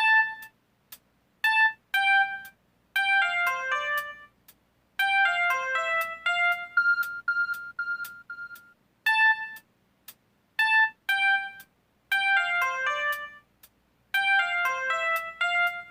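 Built-in mobile phone ringtone playing a bright melody of short, clipped notes in repeating phrases with brief pauses between them.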